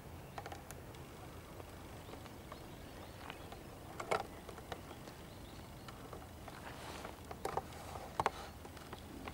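Handling noise from a hand-held camera being moved: scattered light knocks and clicks over a faint steady background, the loudest about four seconds in and a few more close together near the end.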